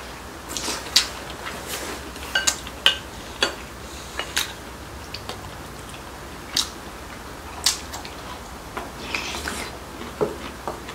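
Chopsticks and a spoon clicking and tapping against bowls and plates during a meal: a dozen or so sharp, irregular clicks.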